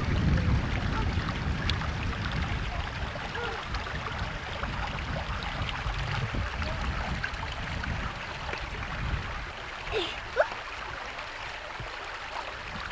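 Water of a small hill stream running over stones, under a low wind rumble on the microphone that is strongest at the start. About ten seconds in there is a brief rising high sound and a sharp click.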